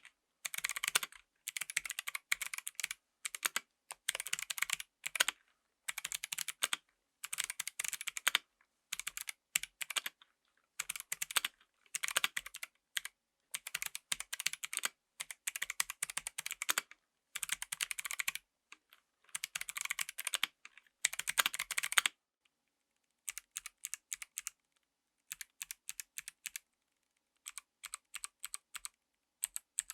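Kailh Box White clicky mechanical keyboard switches being typed on, each keystroke a light, crisp click from the switch's click bar. Fast typing comes in runs with short pauses, and about two thirds of the way through it gives way to slower, sparser single keystrokes.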